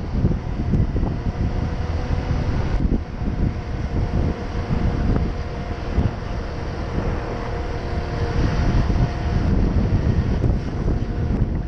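Honda PCX 125 scooter's single-cylinder engine running at a steady pace while riding, with an even hum, under heavy wind buffeting on the microphone.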